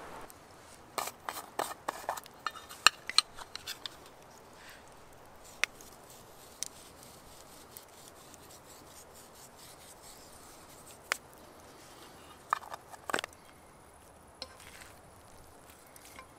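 Wooden utensils tapping and scraping against a frying pan: a quick run of sharp clicks about a second in, a few single taps, then another short run of clicks about two-thirds of the way through.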